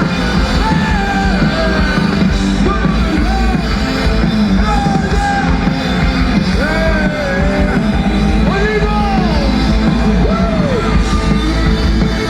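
Rock band playing live: a singer's melody over heavy bass, drums and guitar.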